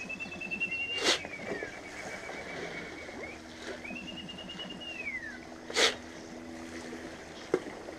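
A person whistling long, steady notes that slide down at their ends, calling the lake's fish to feed the way one calls dogs. Two short sharp sounds cut in, about a second in and, louder, near six seconds.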